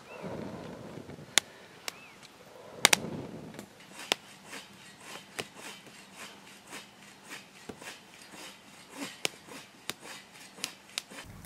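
Small wood campfire of split kindling crackling, with sharp pops and snaps about once or twice a second; two louder snaps come within the first three seconds.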